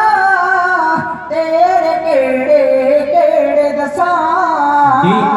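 Punjabi devotional song played over a loudspeaker system: a woman's voice singing long, wavering notes with musical accompaniment, between lines of the lyric.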